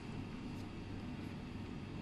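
Steady low background rumble with a faint steady hum: room noise.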